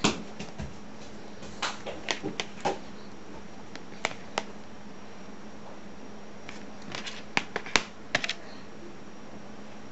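Scattered light clicks and taps of small objects being handled on a tabletop. A few come in the first three seconds, two about four seconds in, and a quick cluster near the end, over a steady low electrical hum and hiss.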